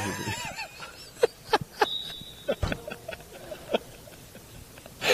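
Basketball bounced on a hardwood gym floor, a handful of sharp knocks at uneven spacing as the shooter dribbles at the free-throw line. There are short squeaks near the start and a brief high squeak about two seconds in.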